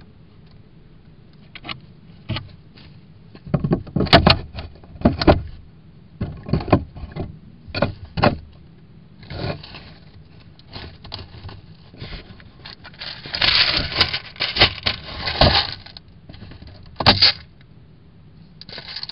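Irregular scratching, scraping and rustling in dry leaf bedding against the wooden walls of a hedgehog house, from an animal moving about out of view. It comes in short clusters with a few sharp knocks, busiest a little past halfway.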